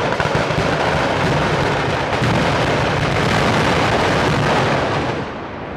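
Fireworks going off in a dense, continuous barrage, the bangs and crackle too fast to separate, easing off about five seconds in.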